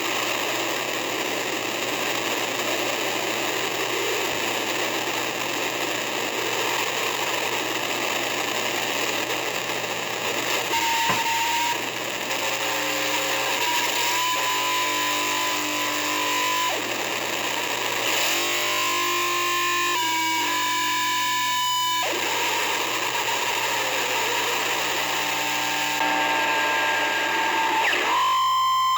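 Harsh noise from a microphone driven through gain pedals and a delay: a dense, steady wall of distorted noise. From about eleven seconds in, a high held tone and layered held tones come and go over it, cutting in and out several times, and return near the end.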